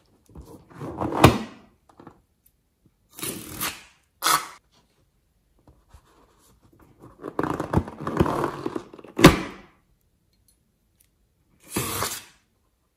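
Liquid-filled rubber balloons handled and squeezed over a glass bowl: five short bursts of rubbing and squishing, with a sharp thunk about a second in and two more past the middle.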